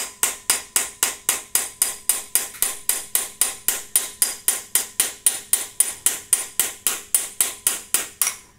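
Hammer striking a steel chisel in a steady rhythm, about three and a half blows a second, each with a short metallic ring, chiseling a corroded, broken coolant flange out of a BMW E30 M3's S14 cylinder head. The blows stop just before the end.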